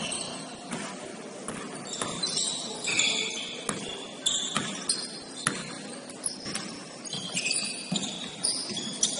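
Basketball shoes squeaking sharply on a hardwood court, with a basketball bouncing and thudding now and then during play.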